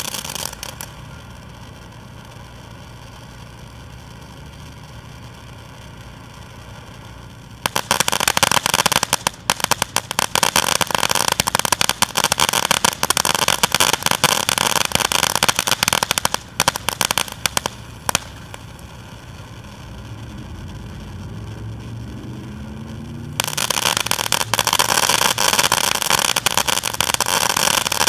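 Consumer firework fountain (the 180, P3112) burning: a steady rushing gush of sparks, breaking into long stretches of loud, dense crackling about a quarter of the way in and again near the end, with a quieter rushing lull between them.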